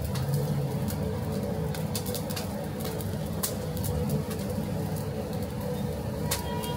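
Busy grill-kitchen noise: a steady low hum of running machinery, with scattered sharp clicks and knocks. A faint high tone sets in near the end.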